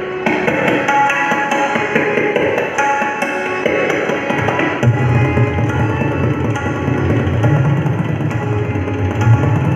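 Tabla solo: rapid strokes on the tabla over a harmonium holding a repeating melody. About five seconds in, deep bass strokes from the bayan come in and keep pulsing under the rapid right-hand strokes.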